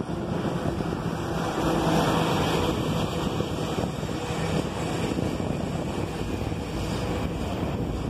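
CSX freight train cars rolling past, a steady rumble of wheels on the rails.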